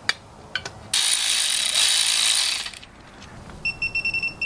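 Heavy-duty zip ties being ratcheted tight around an air-spring bag to compress it. After a few clicks there is one long zipping pull lasting almost two seconds, then a quick series of short ratcheting pulls near the end.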